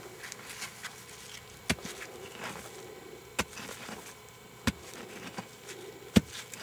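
A hand-held stone chopping into hard red clay soil to dig a hole: four sharp knocks, about one and a half seconds apart, with faint scraping between them. The last knock is the loudest.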